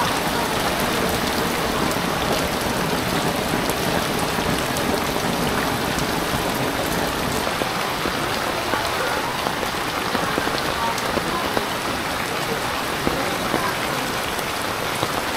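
Rain falling steadily onto floodwater: an even, dense hiss with scattered ticks of drops.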